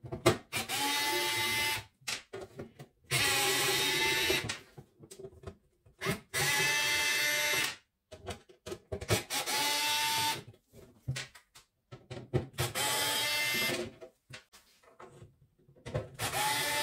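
Cordless electric screwdriver backing out the screws of a welder's sheet-metal casing. It runs in six short bursts of a second or so each, a steady motor whine, with small clicks of handling and loose screws in between.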